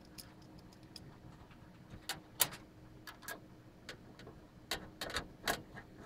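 Phillips screwdriver driving screws into a computer case's steel expansion-slot bracket: scattered small metallic clicks and ticks, irregular and more frequent from about two seconds in.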